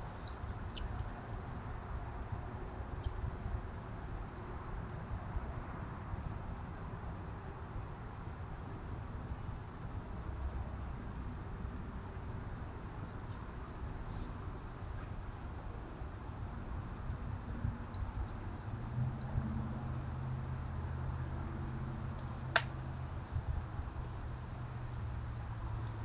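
Steady high-pitched chorus of crickets on a single unbroken tone. Under it is a low rumbling background that grows into a hum past the middle, and there is one sharp click near the end.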